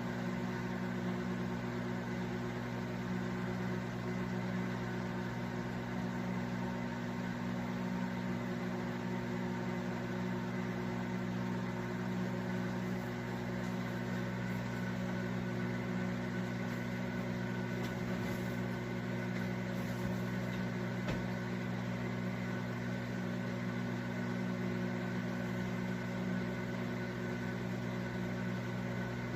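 Toshiba countertop microwave oven humming steadily, an even low hum with no change over the whole stretch, from a unit whose owners complain of it carrying on making noise and its turntable turning too slowly.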